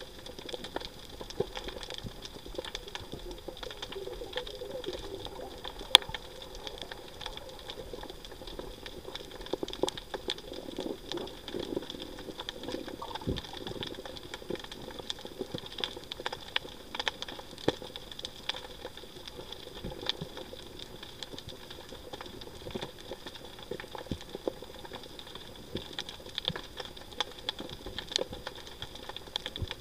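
Underwater reef sound: a constant irregular crackle of sharp clicks and pops, with a few louder snaps, over a faint steady high hum.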